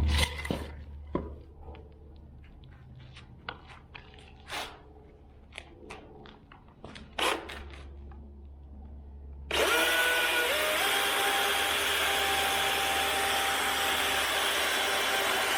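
Scattered knocks and clatter, then about nine and a half seconds in a DeWalt 60V battery chainsaw's electric motor whirs up to speed and runs steadily.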